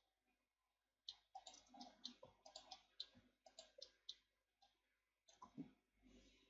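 Faint clicking of a computer mouse and keyboard: a quick run of clicks starting about a second in, then a few more near the end.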